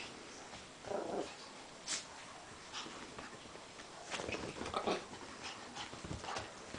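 A Pomeranian making short, irregular vocal sounds, a few about a second in and more around four to five seconds in. Bedding and a towel rustle as the dog scrambles about on a bed after her bath.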